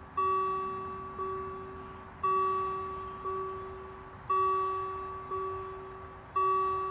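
Swiss railway level-crossing warning bell striking about once a second, each strike ringing and fading before the next, with louder and softer strikes alternating.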